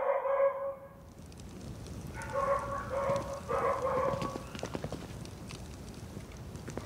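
Footsteps clicking on a cobbled street, with a short pitched tone at the very start and three short pitched sounds in the middle.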